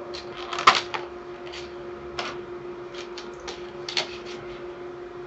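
Clear plastic clamshell packaging of a pair of RAM sticks being handled and its lid pulled off: a scatter of plastic clicks and crackles, the loudest about two-thirds of a second in and another around four seconds. A steady low hum sits underneath.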